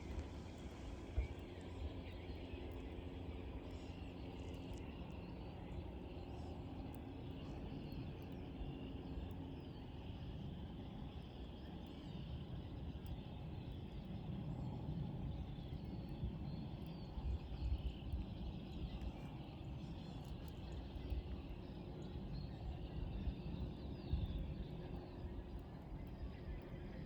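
Faint birdsong over a steady low rumble, with a low hum in the first ten seconds or so.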